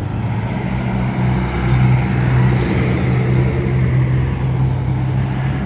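Road traffic at a street intersection, dominated by a steady low engine drone that swells slightly about two seconds in.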